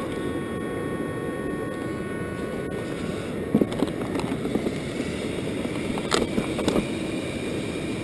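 Small cooling fans on the Traxxas X-Maxx's motor and ESC fan shrouds whirring with a thin steady whine, which cuts off with a click a few seconds in. A few plastic clicks and knocks follow as the truck's body shell is handled, over a steady low rushing noise.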